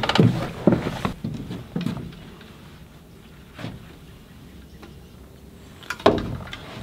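Footsteps on wooden stairs: a quick run of sharp knocks in the first couple of seconds, then quieter, with a single knock a little past the middle and a louder knock near the end.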